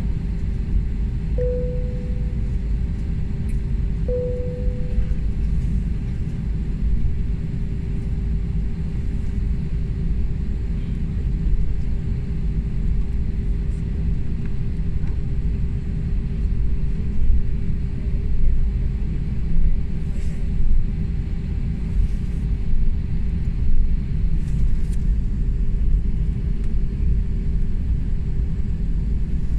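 Cabin sound of a jet airliner taxiing: a steady low rumble of engines and wheels with a constant hum. Two short chime tones sound within the first five seconds, and a few brief knocks and rattles come in the second half as the aircraft rolls over bumps.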